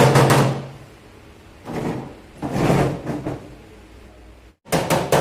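Hammer blows on car-body sheet metal in quick succession. They stop after about half a second, a few softer knocks follow in the middle, and rapid hammering starts again near the end.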